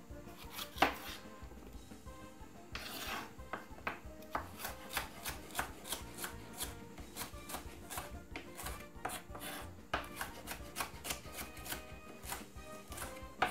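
Chef's knife slicing bell peppers on a wooden chopping board: a steady run of light knife taps on the board, about three a second, with a brief scrape about three seconds in.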